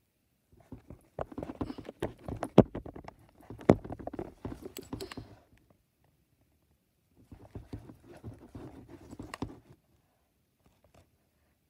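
Handling noise on a phone: fingers and hands knocking and rubbing against the phone's body near its microphone in two spells of rapid clattering, with the sharpest knocks about two and a half and three and a half seconds in.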